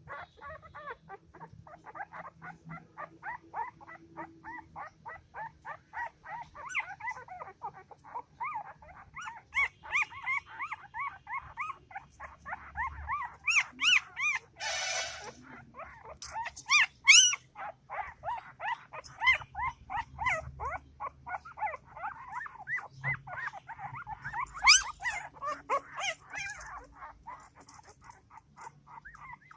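Newborn puppy whimpering and crying in a rapid run of short, high calls, about three a second, with a few louder, higher yelps around the middle and near the end. A brief hissing burst halfway through.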